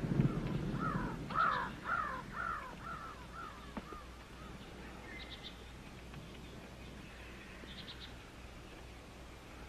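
A crow cawing: a run of about eight falling caws that grow fainter and die away after some four seconds, followed by a few faint, short, high chirps.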